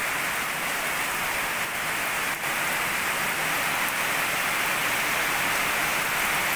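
Heavy rain pouring steadily, an even hiss with no breaks.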